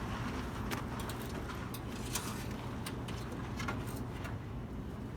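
Scattered light clicks and knocks of hands working on a pickup's hood and fittings, over a steady low hum.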